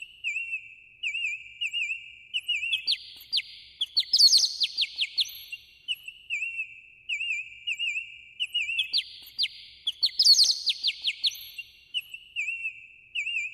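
Songbird singing one phrase over and over, about every six seconds: a loud burst of quick falling high notes and trills, then a run of lower wavy whistled notes. The phrases repeat almost identically, like a looped recording.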